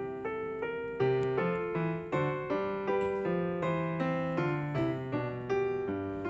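Background music: a gentle piano melody, notes struck one after another about two or three a second, each fading as it rings.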